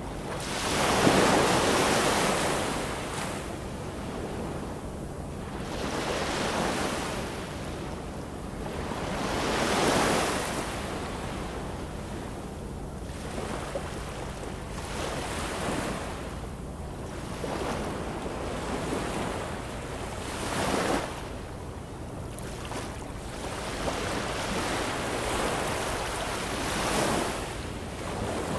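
Ocean waves breaking and washing in, swelling and falling away every four or five seconds. The loudest surge comes about a second in.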